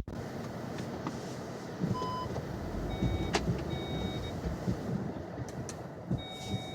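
Car engine running under load as the driver tries to drive out of deep snow where the car is stuck. Short high electronic tones sound about two seconds in, between three and four seconds, and again near the end.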